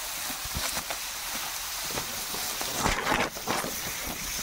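Tall grass rustling and crackling as people push through it on foot, with a louder burst of rustling about three seconds in.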